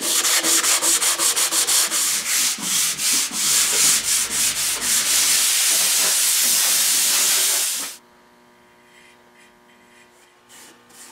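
Wooden drawer being sanded by hand with 150-grit sandpaper before shellacking. It starts as quick back-and-forth scratchy strokes that merge into a steady rasp. The sanding cuts off suddenly about eight seconds in, leaving only a faint steady hum.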